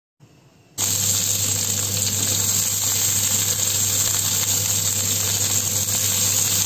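Long beans stuffed with minced pork frying in oil in a pan: a steady sizzle that starts suddenly just under a second in, over a low steady hum.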